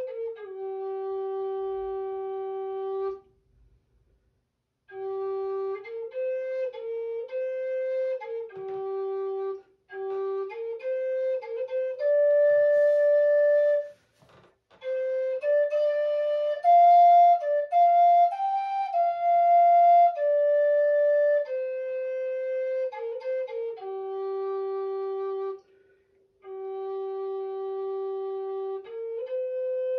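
A solo flute playing a slow, simple melody of long held notes, in phrases broken by three short pauses.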